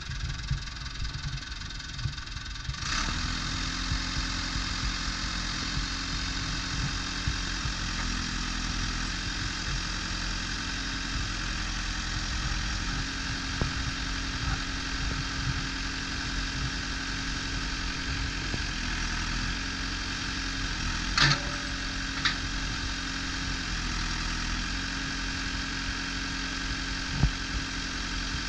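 1997 JCB 3CX backhoe loader's diesel engine running. About three seconds in it gets louder and a steady hum joins it, its pitch stepping up and down after that. A couple of sharp clanks come about two-thirds of the way through, and another near the end.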